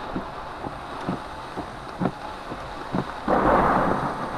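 Wind-driven rain and gusting wind beating on a car, heard from inside the cabin, with light knocks about twice a second. About three seconds in a louder rush of wind and rain lasts about a second.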